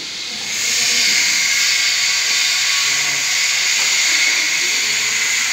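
A loud, steady hiss, with faint voices underneath.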